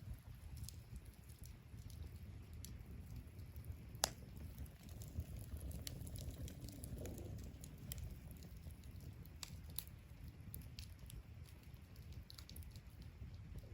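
Wood fire crackling: irregular sharp pops and snaps over a low steady rumble, with one louder pop about four seconds in.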